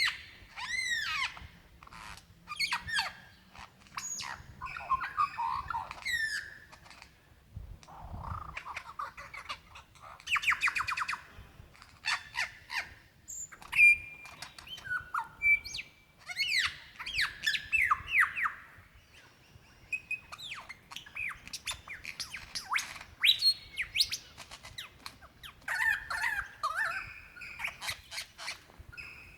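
Male superb lyrebird singing his courtship song for a female: an unbroken run of varied mimicked calls, with swooping whistles, rapid clicking notes, a fast buzzy trill and short pure whistles.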